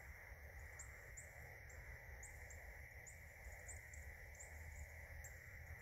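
Near silence: faint outdoor ambience by a pond, with a thin, high chirp repeating irregularly about two or three times a second over a steady faint hiss.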